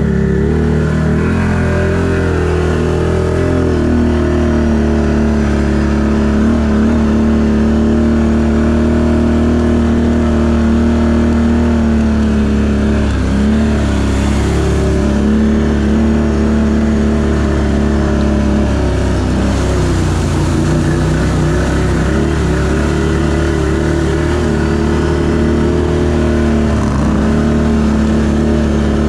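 Can-Am ATV engine running under steady throttle, its pitch dipping briefly a few times as the throttle eases and picks up again, while the tyres churn through muddy water.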